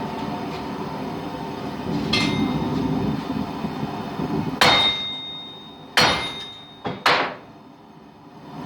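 An 8-pound sledgehammer striking on an anvil: a light blow, then three heavy blows a second or so apart, each followed by a clear metallic ring from the anvil. A steady low hum runs underneath.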